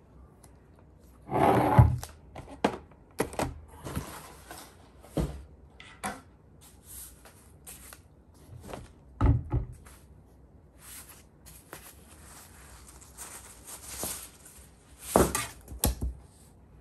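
Products being handled on a wooden table: a large plastic shampoo bottle, a small cardboard box and a coffee tin knocked and set down in a series of irregular thunks, with packaging rustling in between. The loudest knocks come about a second and a half in, about nine seconds in, and twice near the end.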